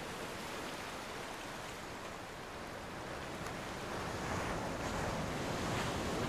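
Ocean surf breaking on a shore: a steady rushing wash that swells a little in the second half.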